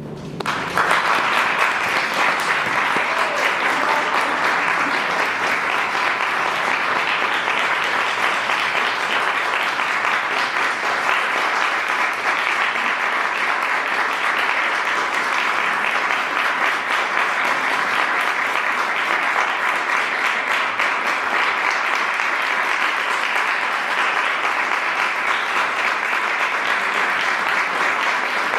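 Audience applauding steadily, breaking out about half a second in.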